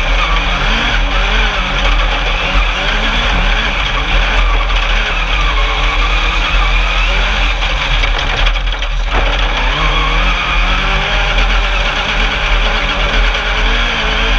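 Engine of an Alumicraft single-seat Class 10 off-road race buggy heard on board under racing load, its revs rising and falling as it accelerates and backs off. There is a brief drop about nine seconds in.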